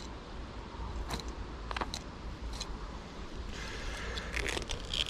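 Filleting knife cutting into a perch: a few short crunchy clicks, then longer scraping cuts near the end.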